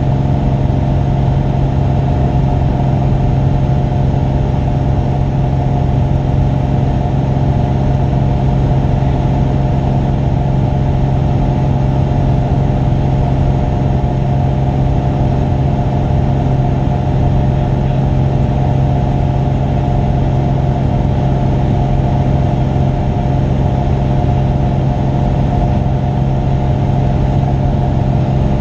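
Single-engine light aircraft's engine and propeller running steadily in cruise flight, heard from inside the cockpit: a constant muffled drone with a strong low hum.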